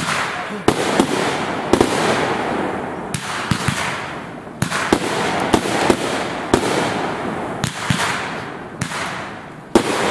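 Aerial firework shells bursting one after another: a rapid string of sharp bangs, one or two a second, with crackling and hiss between them.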